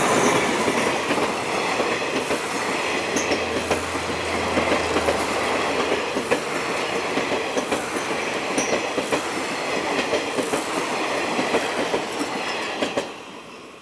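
Passenger express train passing close by at speed behind an Alsthom diesel-electric locomotive, loudest at the start as the locomotive goes by. The carriages follow with a rapid clickety-clack of wheels over rail joints, which drops away sharply near the end as the last carriage passes.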